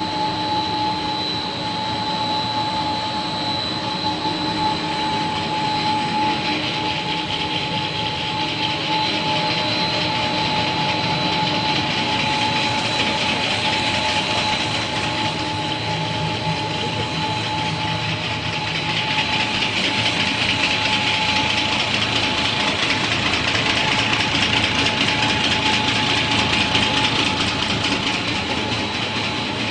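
Machinery of a pillow-snack extrusion line running: a continuous mechanical din with two steady high whines. The noise grows a little louder and hissier about two-thirds of the way through.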